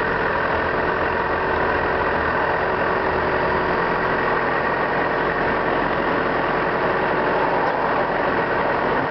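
Car engine running steadily with road noise, heard from inside the car as it drives slowly through a turn.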